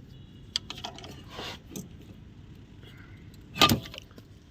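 A screwdriver prying between a brake pad and the caliper to push the piston back: light metal clicks and scraping, then one loud metallic clank near the end.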